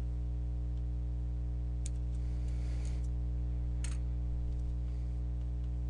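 Steady electrical hum on the recording, with two light clicks of a stylus on a tablet screen about two seconds apart and a faint scratching between them.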